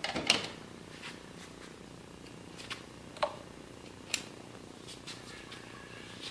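A few short clicks and knocks, the loudest just after the start, over a faint steady low hum.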